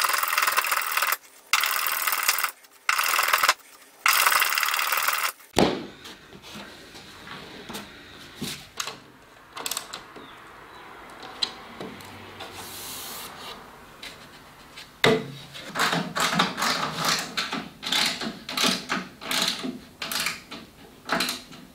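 A hand plane shaving a wooden edge in four strokes, each about a second long, knocking a sharp corner off. After a sudden change about five seconds in, quieter clicks and light metal knocks of bolts being fitted. From about two-thirds of the way through comes a quick run of clicks and scrapes as a bolt is tightened.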